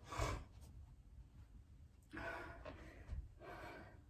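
A person breathing hard from exertion during high-impact jumping exercise, with a few loud breaths in and out.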